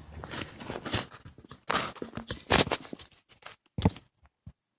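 Hands working bolts and parts under a car: irregular clicks, scrapes and rustles with a few sharper knocks, then the sound cuts out briefly near the end.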